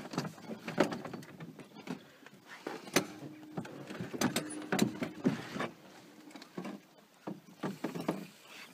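Repeated knocks and clatter of gear being handled in a small fishing boat, with a steady low whir starting about three seconds in and lasting about two seconds.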